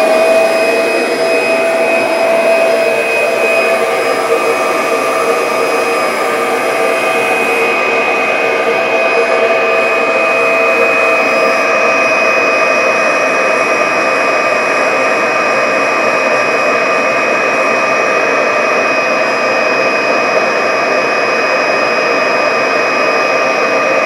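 Kirby vacuum cleaner motor running in blow mode, pushing air into a cloth HEPA filter bag. It has just come up to speed and holds a steady, loud whine over a rush of air.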